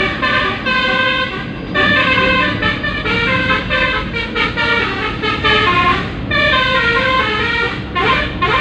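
A bus's Basuri telolet multi-tone air horn playing a song melody from its tune module: a run of short and held horn notes that change pitch with brief gaps, over a low rumble. Near the end comes a rising whoop.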